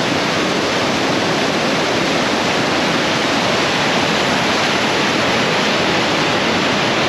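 Water rushing steadily over a river dam, a constant loud roar with no breaks.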